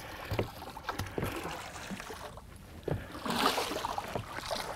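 A bull redfish thrashing and splashing at the water's surface beside a boat as it is brought to the net, with a few scattered knocks. The splashing swells to its loudest about three seconds in.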